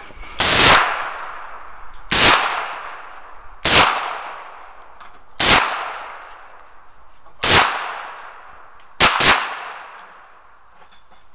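Rossi M971 .357 Magnum revolver firing a string of single shots, roughly one every one and a half to two seconds, each shot trailing off in a long echo. Two shots come in quick succession about nine seconds in.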